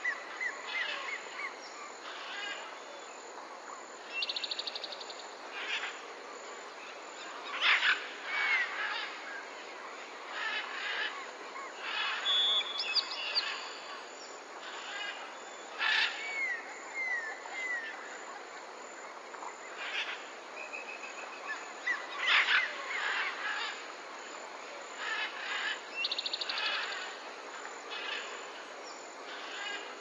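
A chorus of wild birds calling: loud sharp calls every few seconds, short falling whistles and a couple of buzzy trills, over a steady background hiss.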